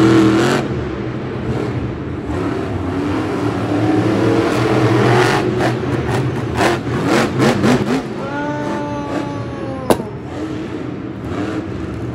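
Monster truck engine revving up and down, with a sharp knock about ten seconds in.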